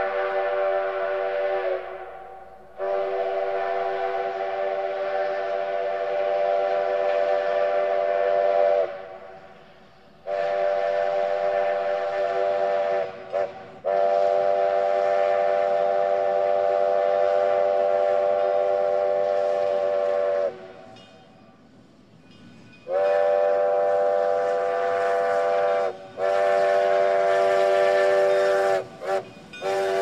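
McCloud River Railroad No. 25's steam whistle sounding a chord of several steady tones, blown in a string of long blasts of several seconds each with short breaks between and a few quick toots.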